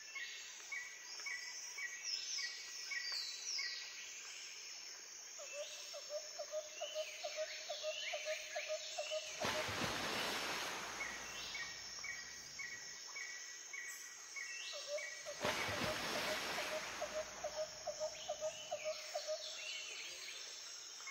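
Recorded nature ambience of birds chirping in quick repeated calls, looping about every ten seconds, broken twice by a loud rushing whoosh.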